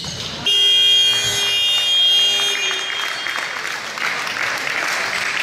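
Gymnasium scoreboard buzzer sounding one steady blast of about two seconds, starting about half a second in, followed by crowd applause.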